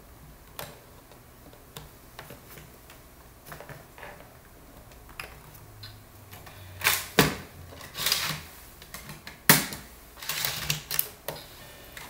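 Irregular sharp plastic clicks and clatters of a CD being handled and loaded into a laptop's disc drive. They are sparse at first, and the loudest run comes from about seven to eleven seconds in.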